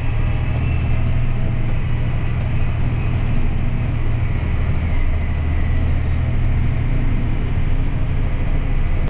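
A vehicle driving at a steady pace: an even, deep engine and road rumble with no change in speed. It ends abruptly.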